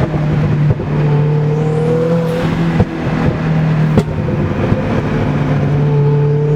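Turbocharged car engine pulling under load on a drive. The note climbs slowly in pitch, breaks briefly near the first and third seconds, and has a couple of sharp clicks around the third and fourth seconds. This is a test drive of a blow-off valve that has had one of its two springs taken out to stop compressor flutter.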